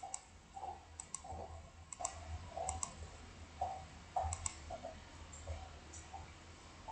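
Light, irregular clicks and soft taps, a few a second, with no steady rhythm.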